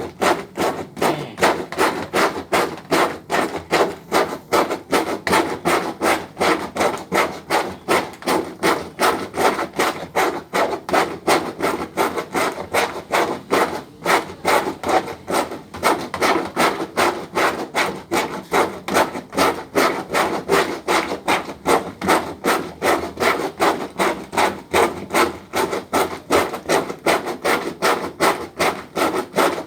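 Hand-operated manual washing machine being worked back and forth, making an even, rapid rhythm of rubbing strokes, several a second, that keeps going without a break.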